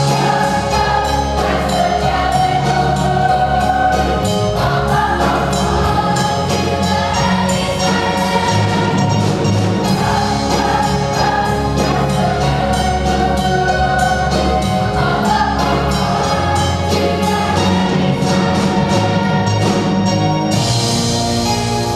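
Musical-theatre cast singing together in chorus over an instrumental accompaniment with a steady beat.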